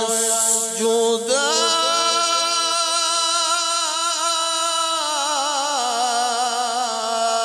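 A male qari reciting the Quran in the melodic tajweed style, amplified through a microphone. He holds one long drawn-out note that steps up in pitch about a second in and breaks into wavering ornaments near the end.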